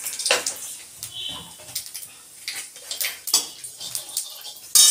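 Metal spatula scraping and tapping against a metal kadai while nigella seeds fry in hot mustard oil, with a faint sizzle under the scrapes. A loud clang of spatula on pan near the end leaves the pan ringing briefly.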